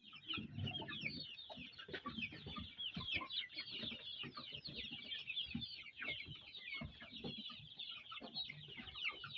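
A flock of local chickens calling together: many short, high peeping calls that slide down in pitch overlap without a break, with lower clucks scattered among them.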